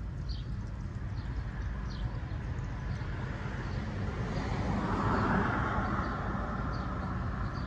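A car passing through the intersection, its tyre and engine noise swelling to a peak about five seconds in over a low steady outdoor rumble. Short high bird chirps repeat in the first couple of seconds.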